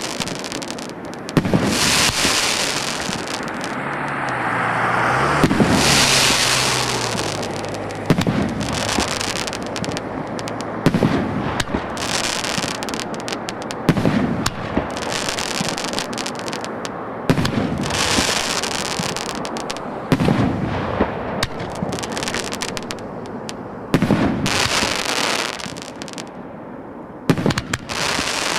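CGF-1303 multi-shot firework cake firing: a loud bang about every one to two seconds as shells launch and burst, each followed by a fizzing, crackling tail.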